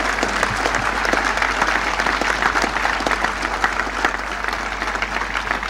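Large outdoor crowd applauding steadily, dense clapping with cheering.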